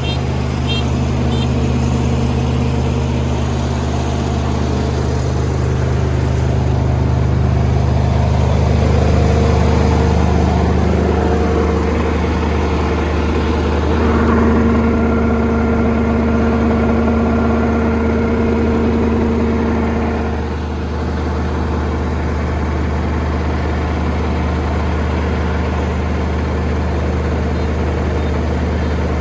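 Kubota combine harvester running steadily while harvesting rice, its diesel engine and machinery giving a loud, even hum. About halfway through, a higher steady whine joins the hum for about six seconds, then stops.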